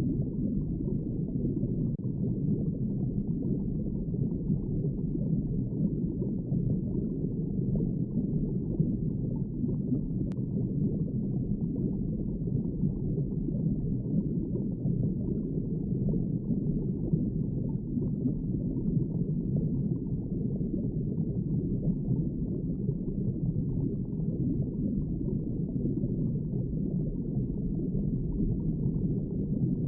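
Underwater ambience: a steady, dull, low wash of water with no distinct events.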